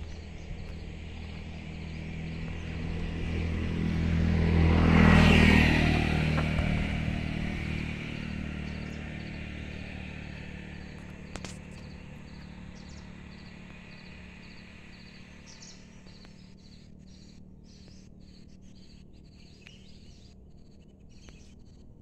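A motor vehicle passing by, swelling to its loudest about five seconds in and fading slowly over the following seconds. Insects chirp steadily at a high pitch underneath.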